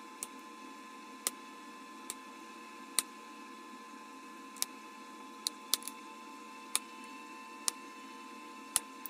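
Bottle glass being knapped: about ten sharp, irregular clicks as small flakes snap off, over a steady hum with a faint thin whine.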